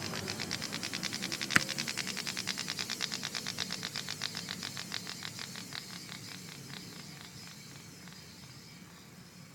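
Rapid, regular ticking, about eight clicks a second, with one sharp louder click about one and a half seconds in; the ticking fades out over the next several seconds. It is an unwanted extraneous noise in a Hyundai Solaris.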